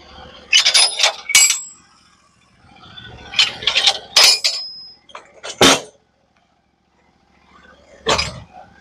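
Clanking and knocking in several bursts as a squared log is rolled onto its side on a manual sawmill's steel bed, with one heavier knock a little past halfway.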